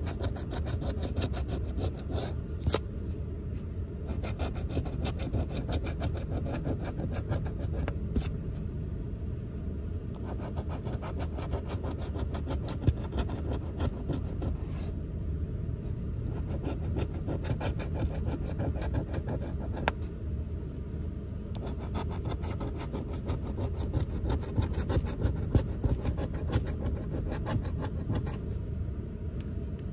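A coin scratching the coating off a lottery scratch-off ticket in rapid short strokes, over a steady low rumble.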